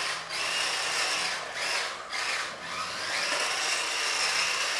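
Small electric motor of a toy-grade all-wheel-drive RC drift car whining in short throttle bursts, then held steady for the last couple of seconds, as the car slides on plastic slick tyres.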